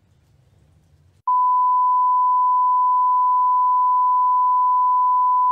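A broadcast feed's line-up test tone cuts in about a second in: one loud, steady, pure pitch held without a break, after faint low hum.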